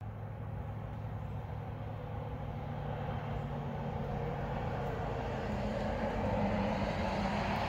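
A motor's steady low hum, slowly growing louder.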